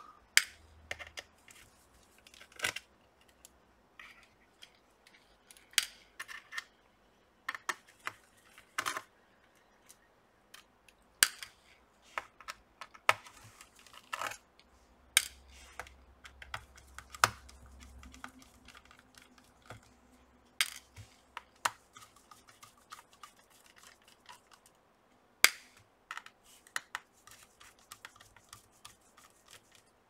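Irregular small sharp clicks and taps of a screwdriver working the screws out of a laptop's bottom cover, one screw after another.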